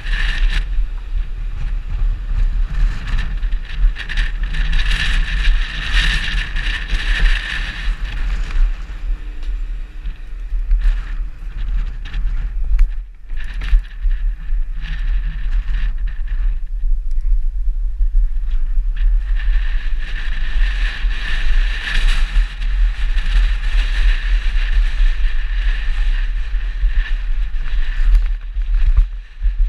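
Mountain bike rolling over paving and then a gravel trail, heard from a camera mounted on the bike: a steady low wind rumble on the microphone with the rattle of the bike. A brighter hiss swells twice, about five seconds in and again past twenty seconds.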